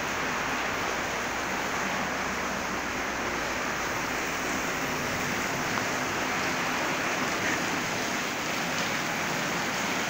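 Heavy rain falling in a steady, even hiss.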